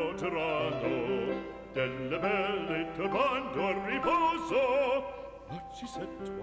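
Background music: an operatic aria, a classical singer with wide vibrato over orchestral accompaniment.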